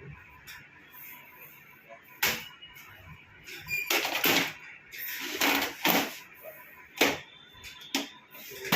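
Scattered clicks and knocks of hardware being handled and pushed into place in an HP DL380 Gen10 server, about seven sharp clicks spread irregularly over several seconds.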